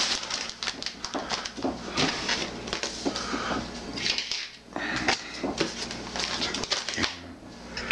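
Hands handling packaging on a tabletop: plastic wrapping rustling and crinkling, with irregular knocks and taps as cardboard boxes are moved and set down.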